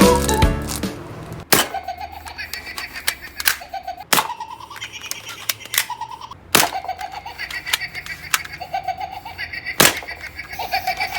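Toy soft-ball gun firing, with sharp pops every two to three seconds, four of them strongest. A warbling electronic tone plays between the shots.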